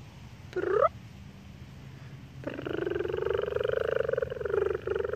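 Two whining, howl-like vocal calls: a short rising one near the start, then a long, rough, wavering one from about halfway through to the end.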